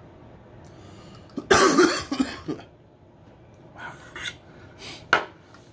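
A man coughs once, a loud rough cough about a second and a half in that lasts about a second. A few fainter short sounds follow, with a short sharp click near the end.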